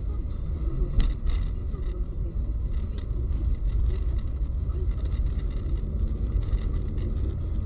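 Steady low rumble of a car's engine and tyres, heard from inside the cabin through a dashcam microphone, with a sharp click about a second in.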